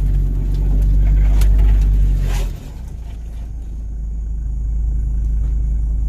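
Off-road 4x4 vehicle driving up a rough mountain trail, its engine rumbling under load. About two and a half seconds in the rumble drops off suddenly, then builds back gradually.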